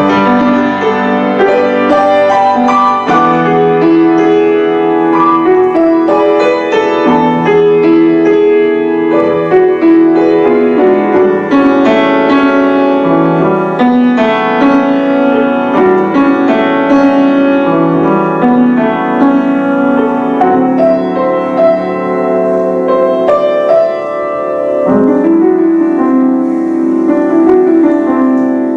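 Piano played four hands, two players at one keyboard, in a continuous flowing classical passage.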